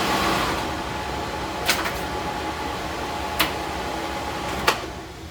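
Vacmaster air mover blower running with a steady rush of air and a faint motor whine, broken by three sharp clicks; after the last click, near the end, the airflow dies down.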